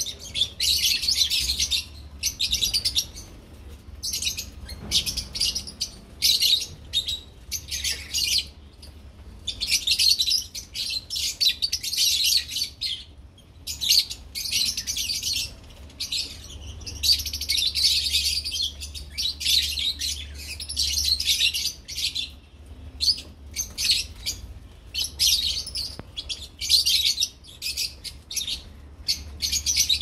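A flock of lovebirds chattering: dense high-pitched chirps in runs of a second or two, broken by short pauses.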